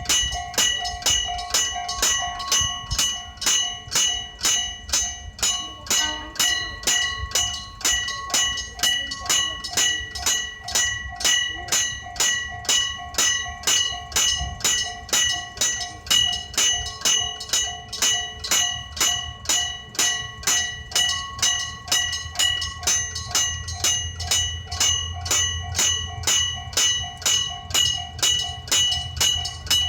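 Electric-bell level crossing alarm ringing with an even, pulsing metallic rhythm, about one and a half pulses a second: the crossing is warning of a train. A low rumble builds beneath it from about two-thirds of the way in.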